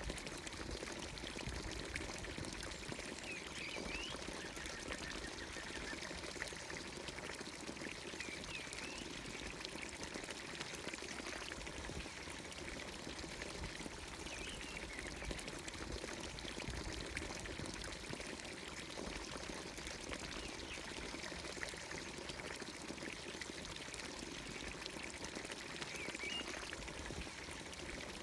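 Water pouring steadily from a village fountain's spout, with a few brief bird calls over it.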